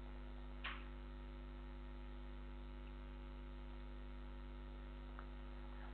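Steady, low-level electrical mains hum: a fixed buzz made of several constant tones, with a faint click about two-thirds of a second in.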